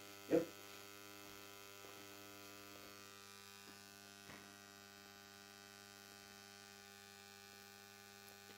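Steady low electrical hum with a long row of even overtones from a running GU-50 vacuum-tube plasma flame generator, its RF flame lit. A short sharp knock about half a second in, and a fainter tick around four seconds.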